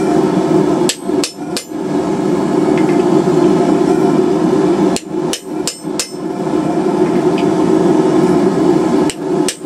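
Blacksmith's hammer striking steel at the anvil in short groups: three blows about a second in, four around the middle, and two near the end, over a steady low roar.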